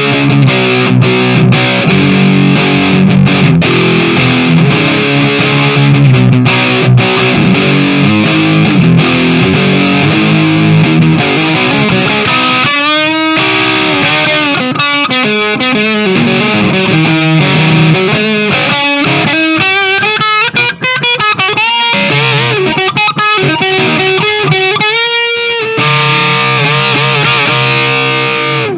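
Kramer Baretta Special electric guitar played through an amp on a crunch tone, the amp volume at half. It starts with chords and riffs, then plays single-note lead lines with bends and vibrato, and ends on a held note.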